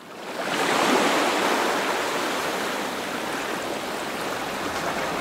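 Ocean surf breaking and washing up a sandy beach, a steady wash of water and foam that fades in over the first second.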